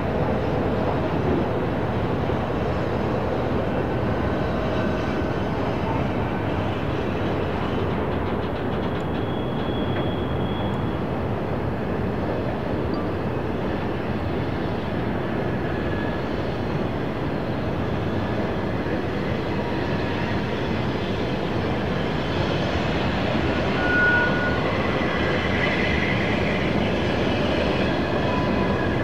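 Freight train rolling steadily along the rails, with brief high-pitched wheel squeals now and then; the loudest squeal comes about two-thirds of the way through.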